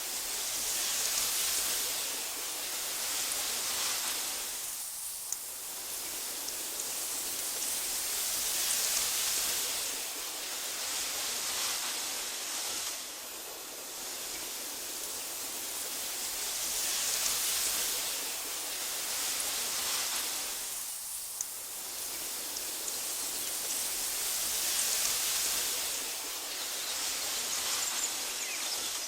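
Wind blowing through tall meadow grass: a soft hiss that swells and fades in slow gusts about every eight seconds.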